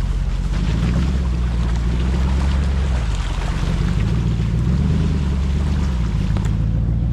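Off-road SUV engine running at low revs, its pitch drifting slowly up and down, under a steady hiss and dense crackle of small ticks.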